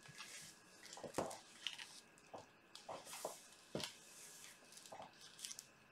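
Scattered light knocks and clicks with soft rustling: paint cups being picked up and handled over a plastic-sheeted table.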